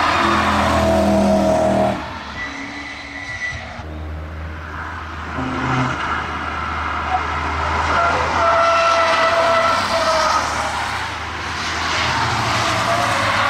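Cars on a race track. A BMW M3 runs loudly past for about two seconds and cuts off abruptly. After that a Volkswagen Transporter van drives through the bends with its tyres squealing.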